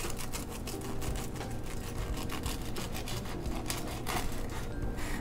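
A small knife sawing through the crisp, deep-fried crust of a potato-stuffed bread roll: a quick, continuous run of crunchy crackles and scrapes.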